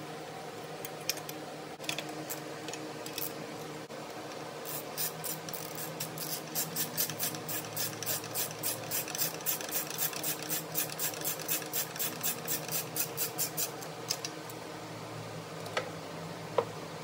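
Ratchet wrench clicking fast and evenly, about four or five clicks a second for some nine seconds, as a bolt is turned, with a few separate clicks before it. A steady low hum runs underneath.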